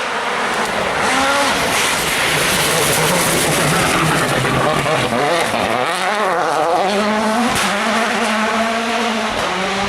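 A World Rally Car engine revving hard on a rally stage, its note rising and dropping several times through gear changes, over loud tyre and gravel noise.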